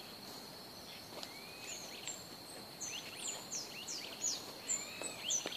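Wild birds chirping and calling at dawn: short high chirps and quick downward-slurred notes from several birds, growing busier about halfway through. A thin, steady high tone runs underneath.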